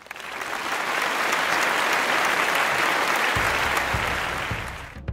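A large crowd applauding, swelling up over the first second and fading out near the end. A low drum beat comes in about three seconds in.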